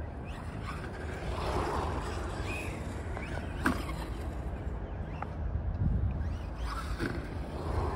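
Remo 9EMU short course RC truck driving at a distance, its electric motor giving a faint whine that rises and falls with the throttle, with a sharp knock about three and a half seconds in. Wind rumbles on the microphone throughout.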